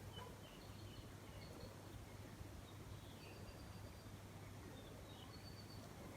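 Faint, scattered bird chirps and short whistled notes over a low steady hum.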